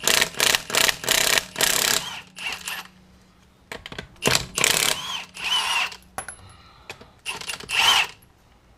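Impact gun loosening a car's lug nuts in short trigger bursts: several quick bursts in the first two seconds, then a few more after a pause, some ending in a short motor whine.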